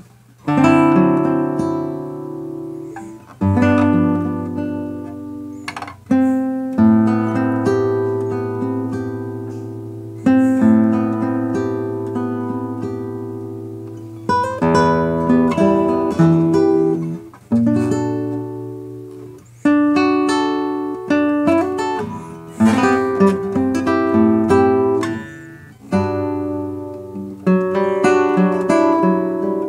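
Solo classical guitar playing a fingerpicked piece: plucked chords and melody notes over held bass notes, each phrase struck and left to ring and fade before the next.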